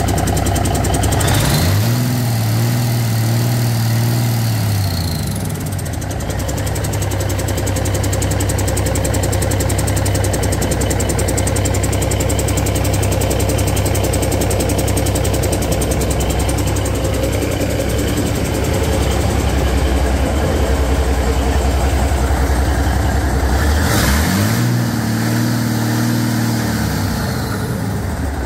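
1986 Cummins small-cam NH/NT 855 fourteen-litre six-cylinder diesel running on a test run, idling steadily. It is revved up, held for about three seconds and let back down to idle twice: once about a second and a half in and again near the end.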